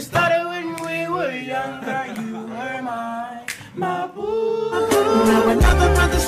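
A voice singing with little or no accompaniment, then a music track with a heavy bass beat comes in about five seconds in.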